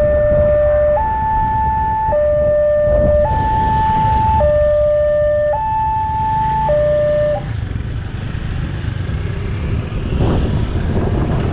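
Railway level-crossing warning siren sounding a two-tone hi-lo alarm, switching between a low and a high note, each held about a second, and cutting off about seven seconds in. A low rumble of road vehicle engines runs underneath and carries on after the siren stops.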